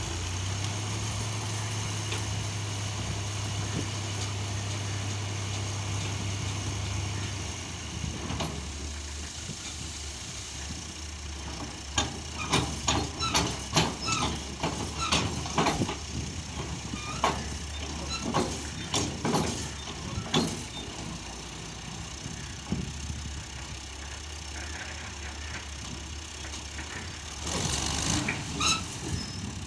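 Tractor engine running steadily, with an extra steady hum that stops about seven seconds in. Then comes a run of sharp metallic knocks and clanks for several seconds, and a short hiss near the end.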